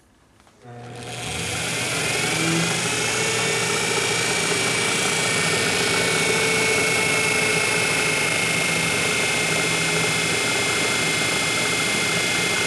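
Metal lathe switched on: the motor and spindle spin up about a second in with a rising whine, then run steadily with the chuck turning at roughly 800 rpm.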